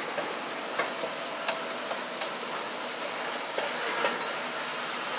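Freight cars rolling slowly past, their steel wheels clicking irregularly over the rail joints, with a faint brief squeal now and then.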